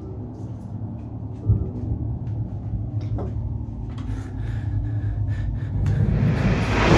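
Low rumbling ambient drone from a film soundtrack, with scattered small clicks and a single thump about a second and a half in. Near the end a rising swell builds into a sharp hit.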